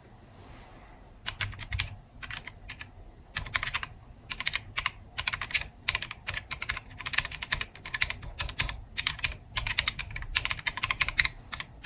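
Typing on a keyboard fitted with Chosfox LXM low-profile keycaps: fast runs of key clicks in bursts with short pauses, starting about a second in.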